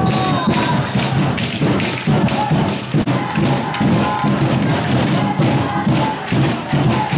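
Steady drumbeats from spectators, hit about twice a second, with shouting voices in the background.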